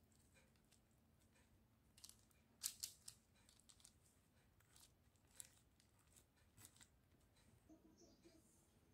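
Faint rustling and crinkling of a plastic glove and parchment paper as hands push marinated chicken wings into place on a baking tray, with a few sharper crackles, the loudest about two and a half to three seconds in.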